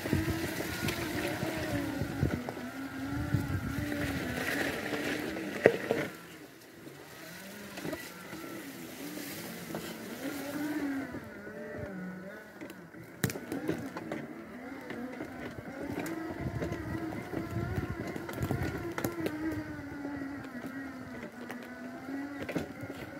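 Power wheelchair's electric drive motors whining as it drives over a rough dirt track, the pitch rising and falling with speed. It is louder for the first six seconds and quieter after, with occasional knocks, one sharp one a little past halfway.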